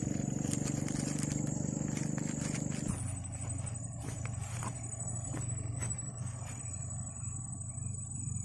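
A small engine running steadily, changing to a lower drone about three seconds in, over a continuous high insect buzz, with a few faint clicks near the middle.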